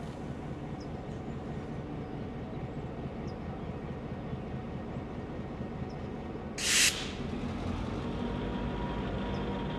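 EMD GP9 diesel locomotive running at low speed as it rolls up to the crossing, with a steady low engine rumble. About two-thirds in comes a short, loud hiss of air, after which the engine rumble is a little louder.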